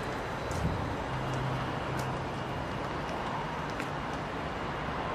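Steady town street background of distant road traffic, with a low hum for a second or so about a second in and a few faint clicks.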